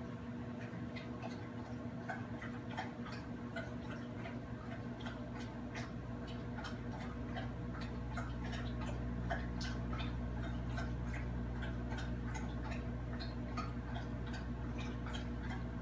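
Microwave oven running on a short heating cycle with bread inside: a steady electrical hum that swells a few seconds in, with quick, irregular ticking clicks several times a second.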